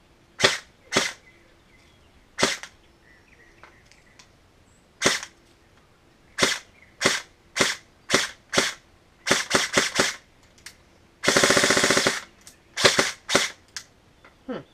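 Airsoft HK416 rifle firing single shots one after another, then a rapid burst lasting about a second just past halfway, then a few more single shots.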